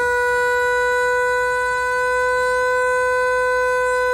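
WWII-era Sterling "Free Rolling" 6-volt electric motor siren running at speed: one loud, steady wail with a rich stack of overtones, rising slightly in pitch and easing back.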